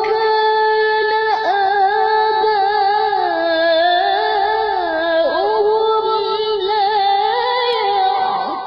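A high singing voice holding long, wavering notes that glide up and down with little break.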